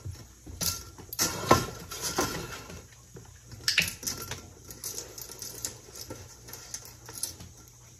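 Irregular metallic taps and clinks as a dog noses and eats treats from a stainless steel colander nested in a metal bowl, with treats dropped into it. The taps are busiest in the first half and thin out toward the end.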